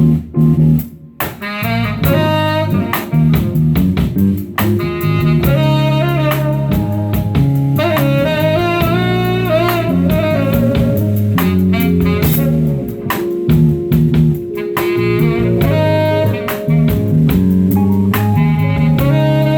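A live band playing an instrumental piece: a gliding melody line over low, stepping notes and regular drum strikes.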